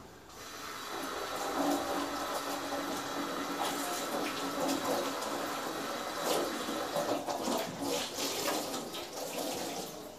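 Kitchen tap running water steadily, turned on just after the start and shut off at the end, with a few sharp clicks and knocks over it.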